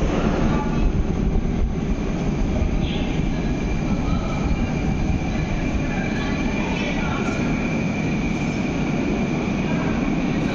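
Metro train running: a steady rumble with a thin, steady high whine above it.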